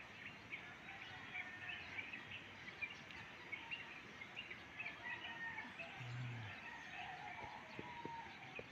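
Many small birds chirping in short, quick, faint calls over a steady background hiss.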